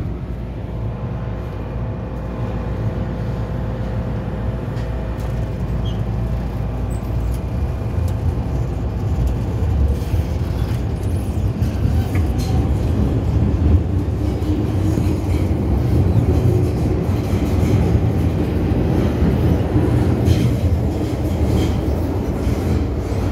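Hong Kong MTR M-Train electric multiple unit heard from inside the car as it pulls out of a station and picks up speed: a steady low running rumble that slowly grows louder, with a few faint clicks.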